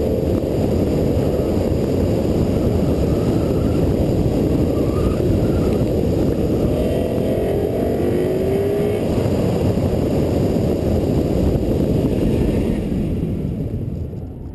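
2012 Ford Mustang GT's 5.0-litre V8, fitted with a Borla ATAK exhaust, driven hard through an autocross course, heard under a heavy wind rumble on the hood-mounted microphone. The sound fades near the end and then cuts off.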